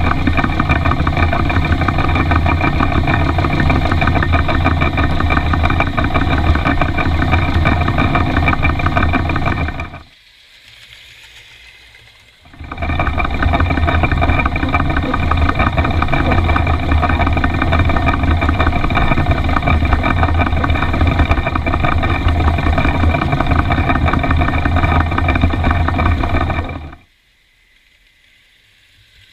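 Ride-on miniature live-steam model of an Isle of Man locomotive running along its track, heard from close by: a loud, steady rumble with a constant hum. It cuts off abruptly about ten seconds in, comes back a couple of seconds later, and cuts off again near the end, leaving only faint outdoor sound.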